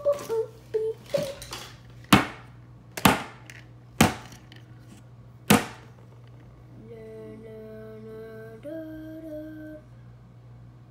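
Four sharp knocks of small plastic toy figures struck on a wooden tabletop, spaced about a second apart. Then a steady hum of several held pitches for about three seconds, which shifts to a new pitch partway through.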